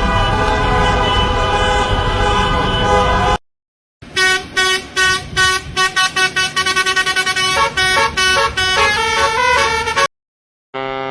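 Vehicle horn sound effects cut one after another. First a long, continuous horn blast over a low rumble, which cuts off after about three seconds. After a brief gap comes a run of short horn toots that come faster and faster and jump between pitches near the end, like a tune. Near the end, after another brief gap, a new steady horn tone starts.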